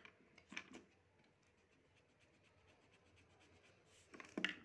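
Near silence with faint pencil-on-paper sounds from sketching, and two brief short noises, one about half a second in and a louder one near the end.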